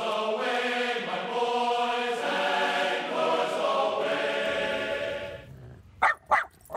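A long, drawn-out voice holds a few stepped pitches for about five seconds, then fades. Near the end a miniature schnauzer gives three quick, sharp yaps.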